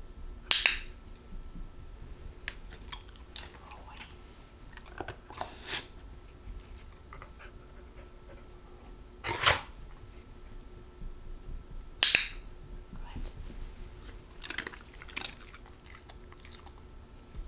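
A training clicker gives a few sharp clicks several seconds apart, each marking a step the Australian cattle dog has taken and signalling that a treat is coming. Between the clicks there are small ticks and crunches of the dog moving about and chewing treats.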